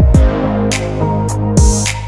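Background electronic music with a drum-machine beat: deep kick drums that drop in pitch, sharp percussive hits and held synth notes.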